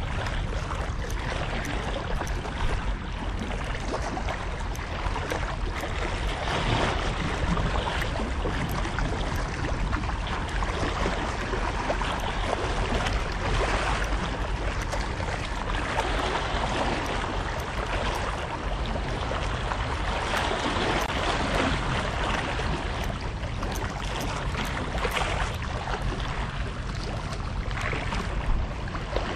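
Steady wind rushing over the microphone, with choppy sea water lapping against the shore.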